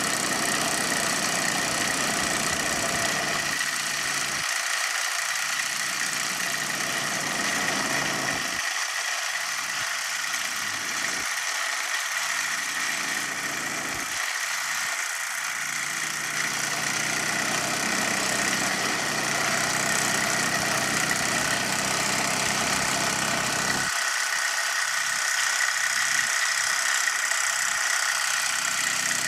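Small live-steam model traction engines running on the spot, giving a steady hiss with a thin, even high tone throughout.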